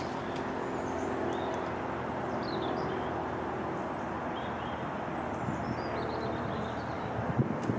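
Steady outdoor background rumble with small birds chirping faintly now and then; a few sharp clicks and knocks near the end.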